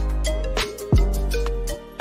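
Music with a beat: deep bass notes about once a second that slide down in pitch, with sharp drum hits and a short stepping melody above them.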